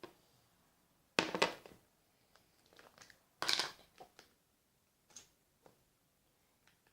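Handling noises: two short bursts of rustling and crunching, about a second in and again about three and a half seconds in, followed by a few faint clicks.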